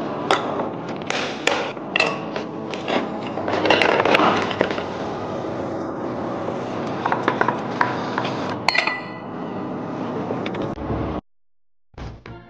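Hand work on engine parts: a string of sharp clicks, knocks and scrapes from metal and plastic parts being handled. It cuts out to silence for under a second near the end.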